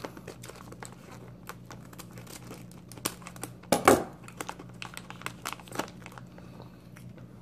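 Plastic cake wrapper crinkling and rustling as it is snipped open with scissors and pulled apart to take the cake out, with scattered small clicks and a louder rustle about four seconds in.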